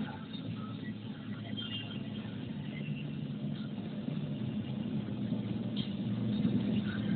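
Car driving along a paved road, heard from inside the cabin: a steady engine and tyre rumble that grows gradually louder.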